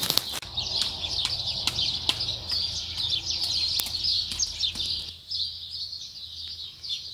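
Small birds chirping in quick, repeated short calls, over scattered light clicks and taps from seedlings being potted up into plastic punnets.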